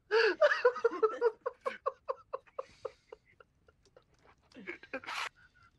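Laughter: a burst that breaks into a long run of short, evenly spaced 'ha' pulses fading away, then a brief second laugh near the end.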